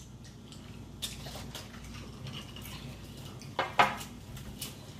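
Quiet table sounds while eating: scattered light clicks and rustles as fried chicken is picked out of paper-lined takeout boxes, with a sharper pair of sounds a little past halfway.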